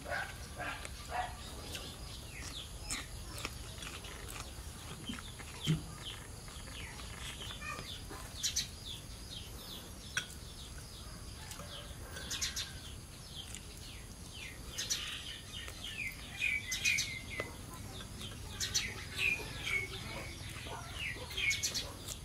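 Small birds chirping in the background: many short, quick calls, scattered at first and busier in the second half.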